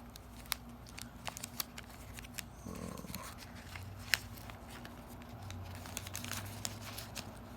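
Wax paper wrapper of a 1986 Fleer basketball card pack being peeled open by hand: faint crinkling with scattered small clicks, one sharper tick about four seconds in.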